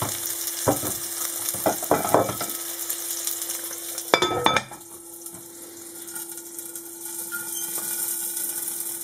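Wollwürste (skinless Bavarian sausages) sizzling in hot oil in a frying pan, with a few sharp spattering pops. About four seconds in, a glass lid clatters down onto the pan, and the sizzling then goes on quieter and muffled under the lid.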